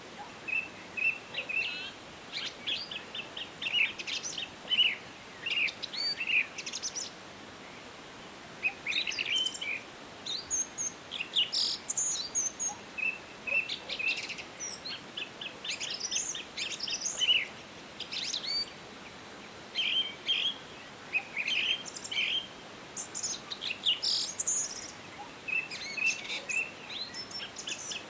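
Several songbirds chirping and singing in short, overlapping phrases with brief gaps, over a faint steady background hiss.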